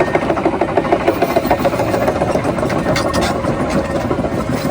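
A vehicle's engine running steadily, with a fast, even pulse.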